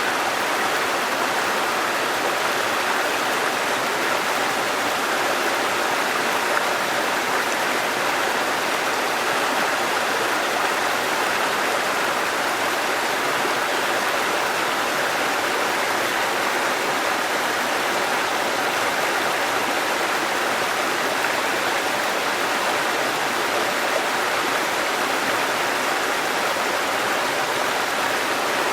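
Waterfall and running water, a steady rushing with no breaks or changes.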